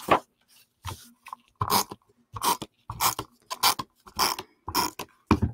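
Sheets of cardstock and patterned paper being handled and slid across a tabletop: a series of short paper rustles, about one and a half a second.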